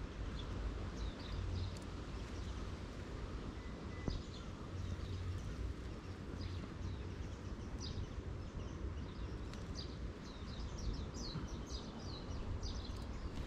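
Small birds chirping in short, high calls, more often in the second half, over a steady low rumble.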